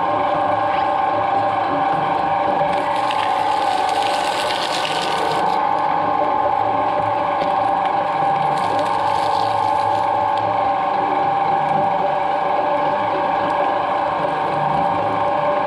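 Twin-shaft shredder running with a steady motor whine, its toothed rotors chewing coconut shell and husk fibre, with bursts of crackling and crunching about three to five seconds in and again around nine seconds.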